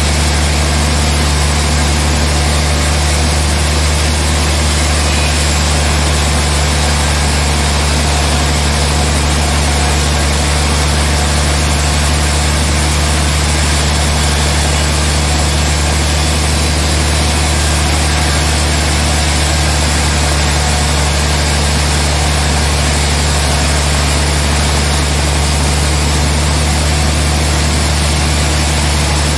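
Large band sawmill running steadily while its blade rips a big trembesi (rain tree) log lengthwise into a slab. It makes an even, loud mechanical drone with a deep hum under a constant sawing hiss.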